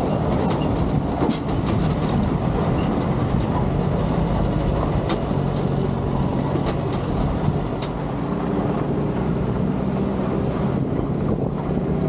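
M151 MUTT jeep's four-cylinder engine running steadily as it drives over a rough dirt trail, with wind on the microphone and scattered clicks and knocks.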